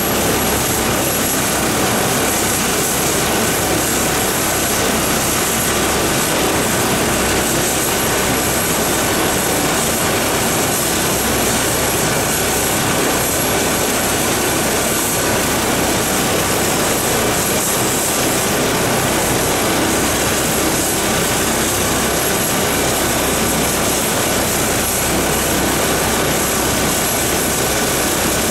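MD902 Explorer helicopter running on the ground with its main rotor turning: a steady rush of rotor and twin Pratt & Whitney 206E turboshaft engines, with a thin, high turbine whine held at one pitch.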